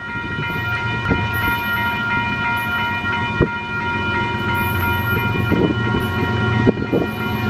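Air horn of an approaching Union Pacific GE AC45CCTE diesel locomotive, held in one long steady multi-chime blast, over the low rumble of the train's diesel engines.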